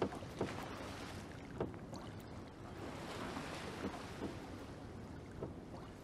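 Quiet water and wind around a wooden fishing boat: a steady hiss of wind and lapping water, with a few faint knocks.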